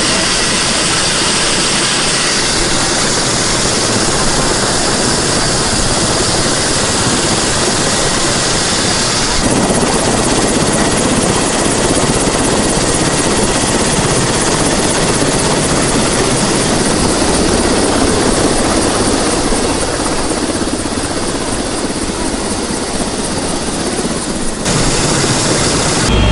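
Helicopter running on the ground: a loud, steady rushing of turbine and rotor, with abrupt shifts in tone a few times.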